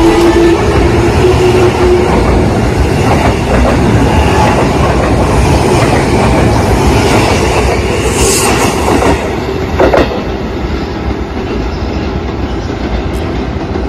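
JR East E233-series electric commuter train running along the platform, its wheels clattering over the rails. There is a sharp clack about ten seconds in, after which the sound grows gradually quieter.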